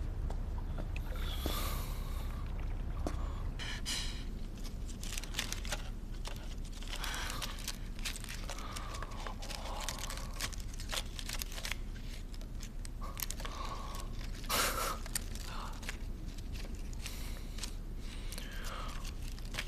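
Scattered rustling, crinkling and small knocks of things being handled, over a low steady hum, with one louder knock about three-quarters of the way through.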